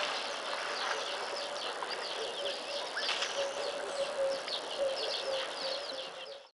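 Bush ambience: many birds chirping in short, quick calls over a steady droning hum, fading out near the end.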